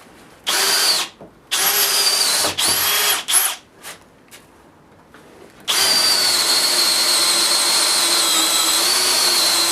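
Bosch GSB18V-535C cordless hammer drill with a 3/8-inch cobalt bit boring a pilot hole for a lag bolt into a wooden workbench. It gives a few short trigger bursts, then runs steadily for about four seconds near the end.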